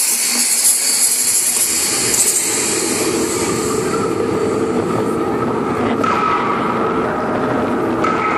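Light show soundtrack from loudspeakers: a loud, dense rushing sound effect with a steady held tone that comes in about two seconds in.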